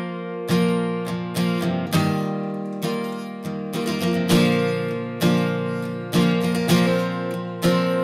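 Background music: strummed acoustic guitar with a steady beat.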